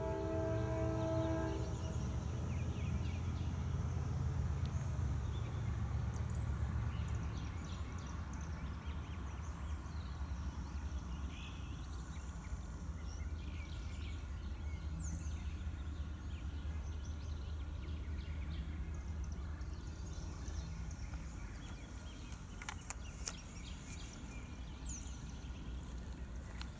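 Distant diesel locomotive air horn sounding a chord that stops about a second and a half in, over a low steady rumble of the approaching freight train. Birds chirp a few times.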